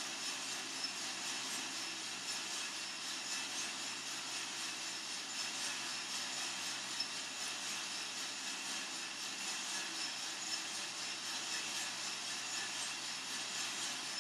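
Coffee-Tech FZ-94 lab roaster running mid-roast: a steady rushing whir of its drum and fan with the beans tumbling inside, and a faint tick now and then.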